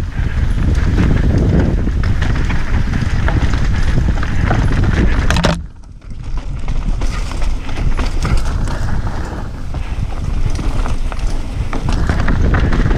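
Wind buffeting the microphone on a fast mountain-bike descent, over tyres crunching on dirt and rocks and the bike rattling and knocking over bumps. The noise drops sharply for about half a second a little before the middle, then returns.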